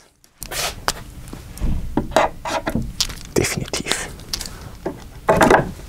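Irregular handling and scraping noises in a small room, with a few brief indistinct bits of voice.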